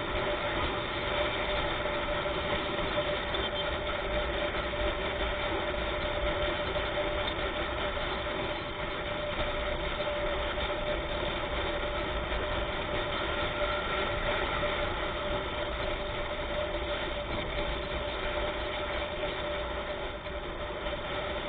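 A vehicle's engine running steadily, with a constant hum and road noise and no change in pitch.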